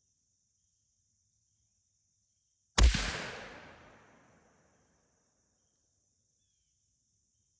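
A single shot from a .223 Savage Axis II Precision rifle fitted with a muzzle brake, about three seconds in, its report echoing away over a second and a half.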